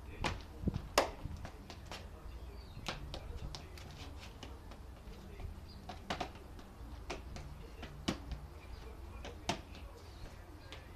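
Boots tapping and scuffing on brick paving in irregular dance steps, sharp clicks one to three a second, over a steady low rumble.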